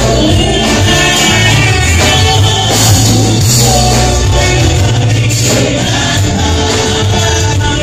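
Loud gospel music with a heavy bass line and group singing.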